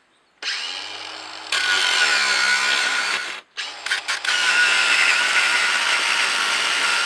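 Power cutting tool starting up and cutting through the last bolt holding the floor plate of a cast-iron wood stove. It runs steady and loud, stops briefly a little past halfway with a couple of short stutters, then cuts again.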